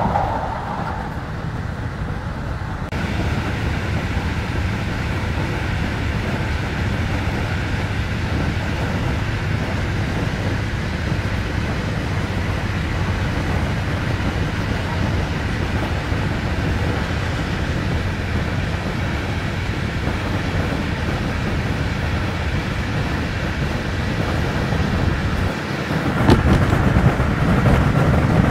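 Steady running noise of an Intercity passenger train at speed, heard from inside the carriage: a low rumble with a rush of air and wheels. The rush grows a little louder about three seconds in. Near the end comes a single short knock, and the rumble swells after it.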